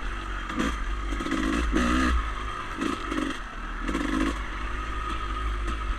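Dirt bike engine running on a trail ride, a steady rumble with irregular clattering knocks and scrapes from the bike, heard muffled through a camera housing.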